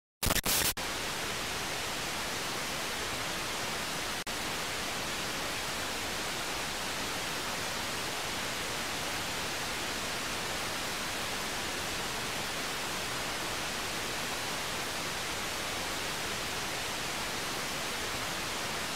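Steady, even static-like hiss, louder for a moment right at the start, with a faint tick about four seconds in.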